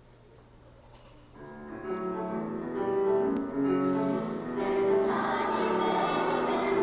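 Children's chorus singing with piano, starting about a second and a half in after a faint low hum.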